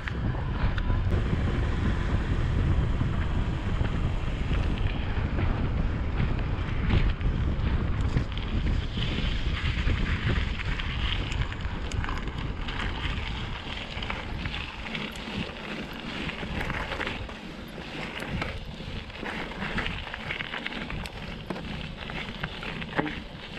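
Wind buffeting the microphone of a mountain bike's action camera over the rolling noise of the tyres. About halfway through the wind rumble eases and the tyres crunch on gravel, with small rattles and ticks from the bike.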